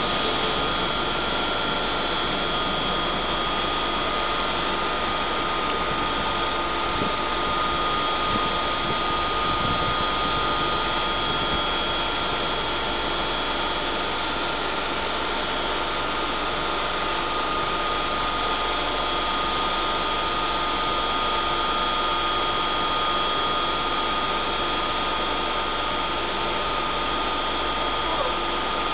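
NS Class 186 electric locomotive standing with its cooling fans running: a steady fan-like hum with two thin, constant high tones over it.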